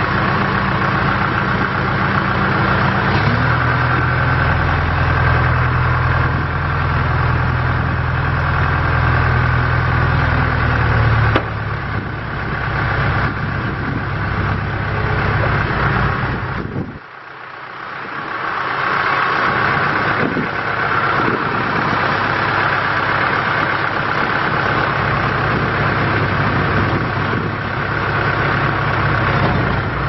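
A 2003 John Deere 310G backhoe loader's diesel engine running as the front loader arms are raised and lowered, with a steady high whine over the engine. The engine note steps up a few seconds in, drops back about a third of the way through, and dips sharply for a moment just past the middle before picking up again.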